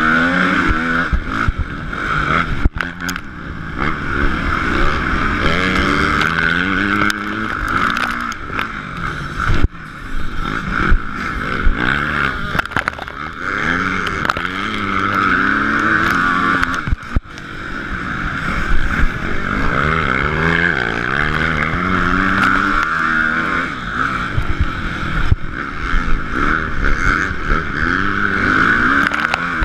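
Motocross bike engine heard on board under hard riding, revving up again and again as it climbs through the gears, with brief throttle cuts about 3, 10 and 17 seconds in, over a steady rush of wind.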